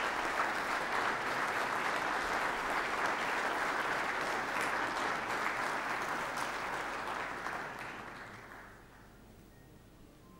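Audience applauding steadily, the clapping dying away about eight to nine seconds in.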